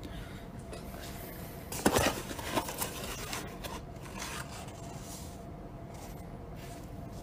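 A disposable takeaway food container being handled, its lid rubbing and scraping as it comes off, with a sharp knock about two seconds in and smaller clicks after.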